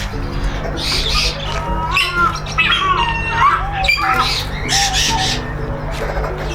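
Birds giving repeated harsh squawks, with a run of gliding calls in the middle, over background music.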